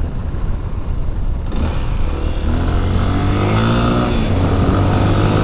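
Honda XRE 300's single-cylinder engine accelerating hard, its pitch climbing as the revs rise, then holding at speed.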